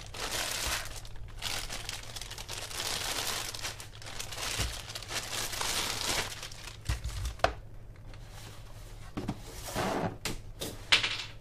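Thin clear plastic packaging bag crinkling and rustling noisily as a headset is worked out of it, dense for the first six or seven seconds, then thinning to scattered crackles with a sharp click near the end.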